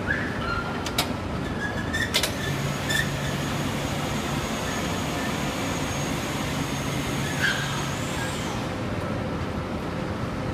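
Building-site background noise: a steady wash of sound with a machine hum for several seconds in the middle, a few sharp knocks or clicks about one, two and three seconds in, and a couple of short chirps.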